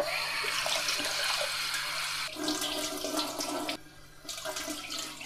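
Kitchen tap running into a glass bowl of bulgur as the grain is rinsed, the water swirling and sloshing in the bowl. The sound breaks off briefly about four seconds in, then water trickles again more faintly.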